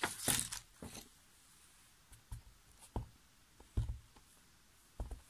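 Small handling noises on a craft table: a papery rustle as a card is slid across the work mat at the start, then four soft, separate knocks as a plastic ink pad is picked up and handled.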